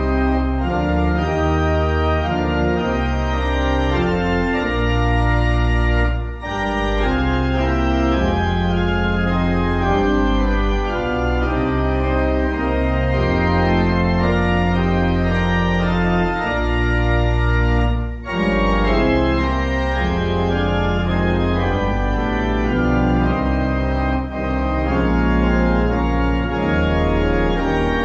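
Organ playing a hymn tune with no singing: held chords over a deep bass that change step by step, with short breaks between phrases about 6, 18 and 24 seconds in.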